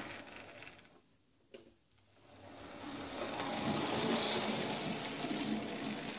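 OO gauge Hornby Thompson L1 2-6-4 tank locomotive model running on sectional track, its small electric motor whirring and its wheels rattling on the rails. The sound fades to almost nothing about a second in, with a single sharp click, then swells again and holds for several seconds.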